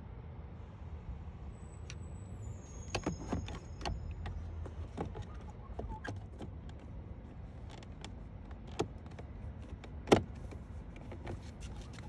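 Scattered plastic clicks and knocks from a VW Golf Mk5 mirror and window switch panel being handled and pressed into the door armrest trim, with a cluster of clicks about three seconds in and one sharp snap about ten seconds in, over a low steady rumble.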